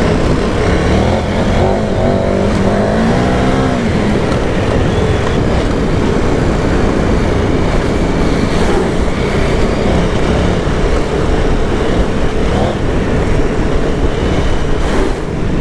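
Motorcycle engine running while riding a dirt track, its pitch rising and falling with the throttle about two to four seconds in, over heavy wind and tyre noise on a helmet-mounted microphone.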